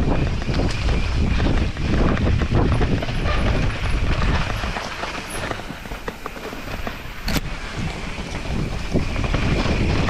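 Santa Cruz Megatower full-suspension mountain bike ridden fast over a dirt singletrack: a constant rumble of tyres on dirt with the bike rattling and clicking over roots and bumps, and wind buffeting the microphone. It eases off a little past the middle, with a sharp click near the end of that lull.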